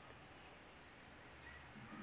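Near silence: faint background room tone in a pause of the narration, with a couple of faint brief high tones.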